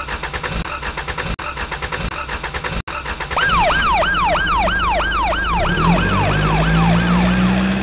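Emergency-vehicle siren yelping: a fast rising-and-falling wail about three cycles a second, starting about three and a half seconds in, over a low vehicle engine rumble that grows louder near the end. Before the siren, a fast, even rattle cuts off abruptly.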